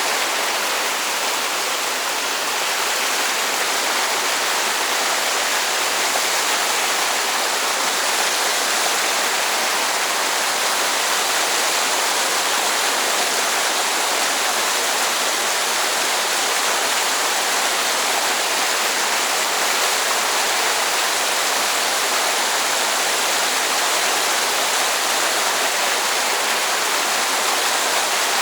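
Mountain stream water running steadily: an even, continuous rush.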